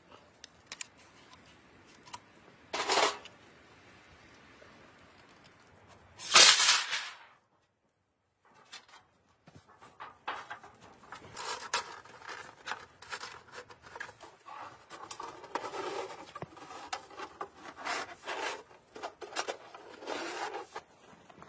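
Two sharp clanks of thin sheet-steel stove parts knocking together, the second louder. After a short pause comes a long, irregular run of scraping and crunching as a snow shovel digs through snow.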